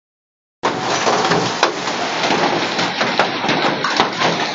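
Hail and heavy rain pelting down, a dense steady clatter-hiss with a few sharp cracks of individual hailstones striking hard surfaces. It starts abruptly about half a second in.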